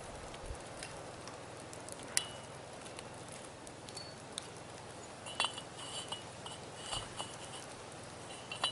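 Small metallic clinks with a light ring, a sharp click about two seconds in and a run of them from about five seconds in, as a galvanized steel pipe fitting is handled and screwed onto the top of a steel well pipe. Faint outdoor background.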